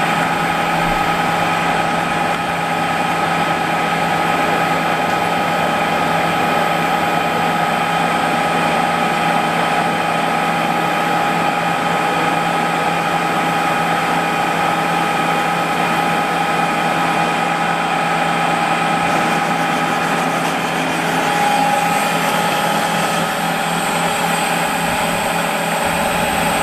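Harrison M300 lathe, converted to CNC, running steadily: a constant mechanical hum with a steady whine made of several fixed tones. One tone shifts slightly about two-thirds of the way through.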